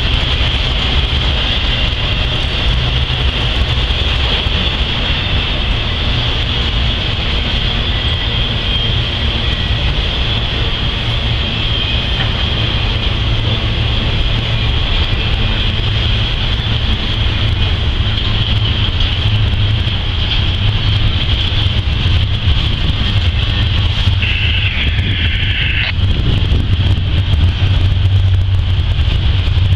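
Freight train of autorack and intermodal cars rolling past with a steady low rumble and a steady high whine over it. About four-fifths of the way through, a short higher squeal sounds for about two seconds.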